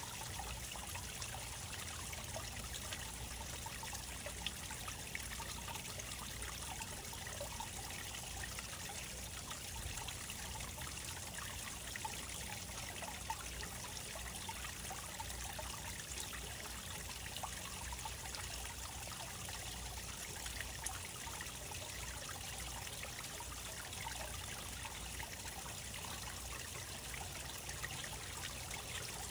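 Water trickling steadily, with faint scattered ticks of small splashes.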